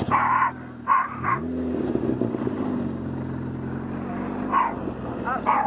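An engine revs up about a second and a half in, then runs steadily. A dog barks twice at the start and again near the end.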